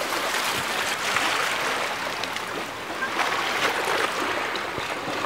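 Small sea waves washing and lapping at the shoreline, a steady rush of water that swells and eases a few times.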